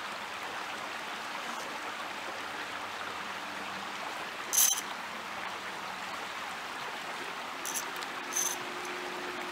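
Steady rush of a flowing creek, with a short sharp click about halfway through and two fainter clicks near the end.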